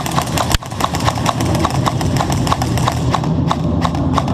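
Quick, rapid footsteps of several players running on a bare concrete floor, over a steady low hum.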